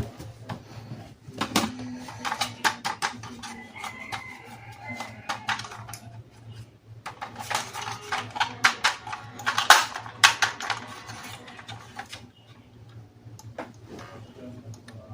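Rapid plastic clicks and rattles from toys and their parts being handled during unboxing, in two busy stretches with a quieter spell near the end.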